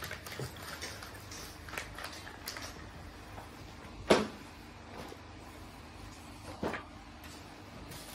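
Paper sheets and plastic parts bags being handled on a carpet: light rustling and small clicks, with a sharp thump about four seconds in and a smaller one at about six and a half seconds.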